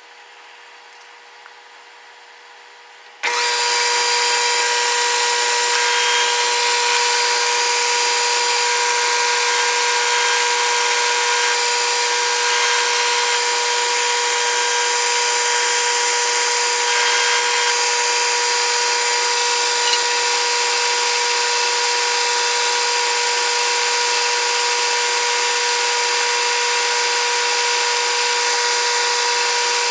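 Small metal lathe switched on about three seconds in, then running steadily with a constant whine.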